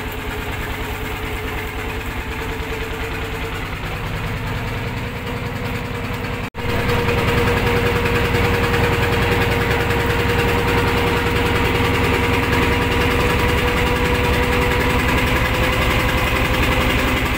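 Wooden lake boat's engine running steadily under way, with a fast even pulse. It breaks off for an instant about six and a half seconds in and comes back louder, with more rushing noise over it.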